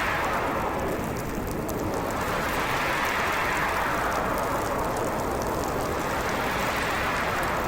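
Storm wind howling in slow gusts over a steady rushing hiss, its pitch rising and falling about every four to five seconds.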